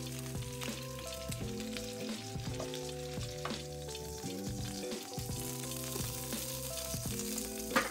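Seasoned oil and chicken drippings sizzling steadily in a hot frying pan, under background music of held notes that step from one pitch to the next.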